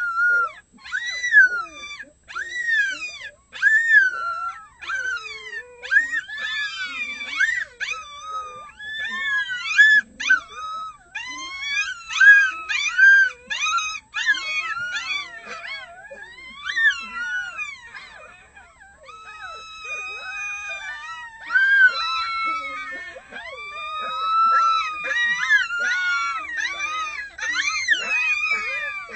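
A litter of month-old red wolf pups howling together: many high, overlapping yips and short arching howls, thinning out briefly past the middle, then longer held notes near the end.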